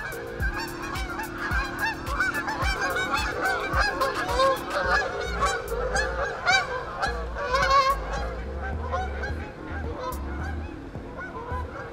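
A flock of geese honking as they fly over, many calls overlapping, thinning out about eight seconds in.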